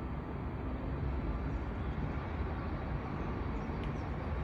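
Steady low rumble of city background noise, with no train passing close by.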